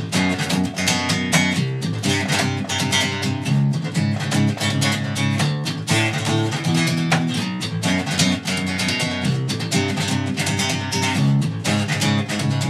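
Electric bass guitar (Jackson) played fingerstyle: a fast, unbroken riff of rapidly plucked notes.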